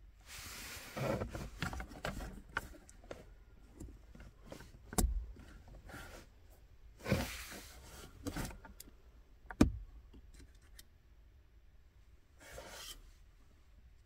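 Hands unclipping the wiring plug from a Volkswagen Polo Mk4 handbrake warning light switch and pulling the plastic switch out: rubbing and rustling with several sharp plastic clicks, the loudest nearly ten seconds in.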